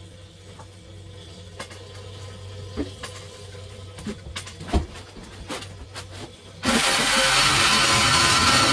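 Scattered knocks and clunks, then about seven seconds in a power tool starts up suddenly and runs loud and steady, cutting.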